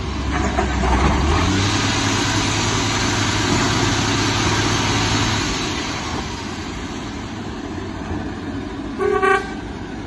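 Heavy MAN truck's diesel engine running under load as it tows a low-loader carrying an excavator, then easing off after about five seconds. A short horn toot sounds about nine seconds in and is the loudest sound.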